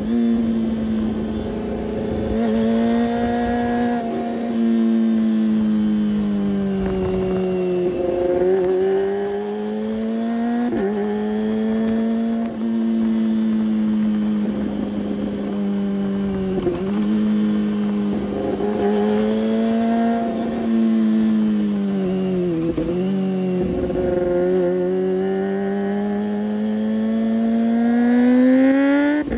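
Kawasaki Ninja ZX-25R's inline-four engine through its aftermarket Yoshimura exhaust, heard from right beside the silencer while riding. The engine note rises and falls with the throttle, dipping briefly several times as the rider shifts or rolls off, and climbs steeply near the end.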